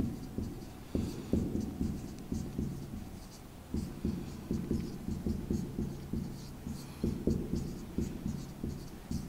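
Marker writing on a whiteboard: a quick run of short strokes and taps, with a brief lull about three seconds in.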